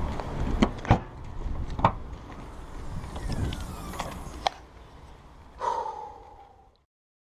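Sharp clicks and knocks from a car's open hatchback boot being handled, then a short tone with a slightly falling pitch near the end before the sound cuts off.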